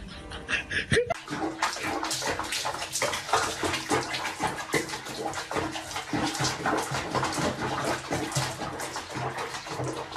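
Water splashing and sloshing, with irregular splashes following each other closely.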